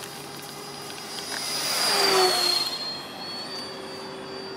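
FMS Yak 130 RC jet's 70 mm electric ducted fan on a fast, close pass: a whine and rush that swells to its loudest about two seconds in, then drops in pitch and fades as the jet goes away.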